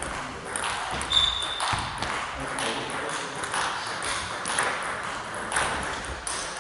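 Table tennis ball clicking on the table and the rackets in a large hall, about two clicks a second, with a brief high squeak about a second in.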